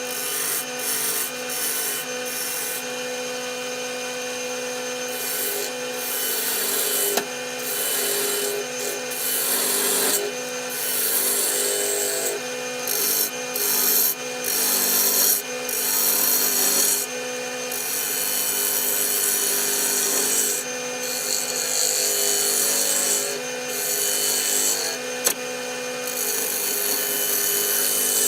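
Wood lathe running with a steady hum while the spinning walnut workpiece is worked by hand, giving a hissing, rasping wood noise that comes and goes in passes of a second or a few seconds.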